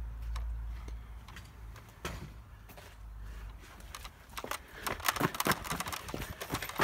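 Footsteps scuffing and clicking on gritty paving, with rustle from handling the phone and a plastic toy blaster. They start faint and grow into a dense run of sharp steps and clatter about two thirds of the way in. A low rumble is heard at the start.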